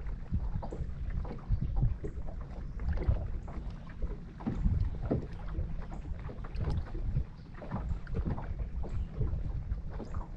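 Wind rumbling on the microphone aboard a small fishing boat on open water, with irregular knocks and slaps throughout.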